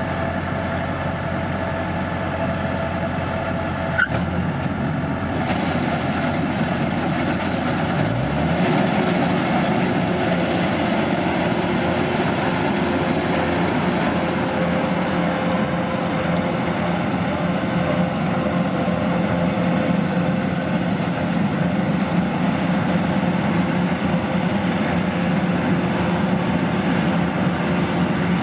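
Rice combine harvester's diesel engine running steadily, with a sharp click about four seconds in. About eight seconds in, the engine speeds up with a rising pitch, then runs steadily at the higher speed.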